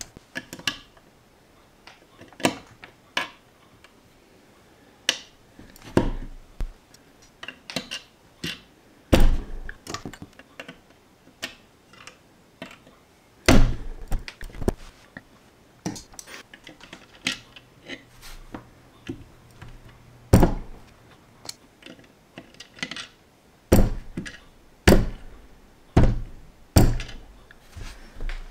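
Small plastic LEGO pieces being placed with steel tweezers and pressed onto a brick-built toy car: irregular light clicks and taps, with a heavier thump every few seconds as the parts are pushed down by hand.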